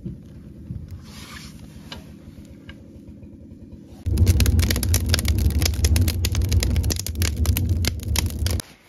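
Wood stove fire burning in its firebox: kindling and paper crackling softly at first. About four seconds in it turns loud, a low roar with dense, rapid crackling, which cuts off suddenly near the end.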